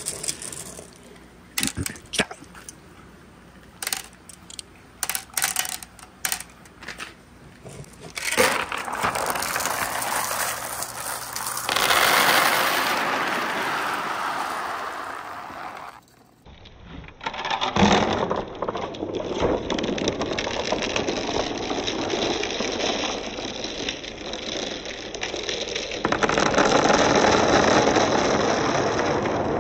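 Glass marbles clicking one at a time as they are dropped into a bamboo tube. About eight seconds in, the weighted bamboo tips and releases them, and a steady clatter follows as a mass of glass marbles rolls down a perforated board.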